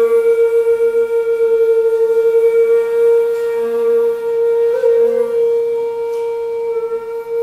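Two hocchiku, long bamboo end-blown flutes, playing slow held notes. One long note is held steadily, stepping briefly higher about five seconds in, over a fainter lower note that comes and goes.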